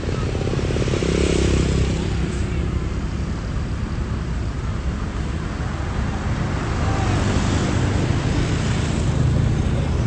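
Road traffic with vehicle engines running, a steady rumble that swells about a second in and again near the end.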